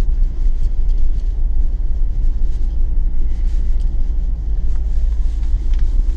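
Steady low rumble of a Ford Fiesta driving on hard-packed beach sand, with engine and tyre noise heard from inside the cabin.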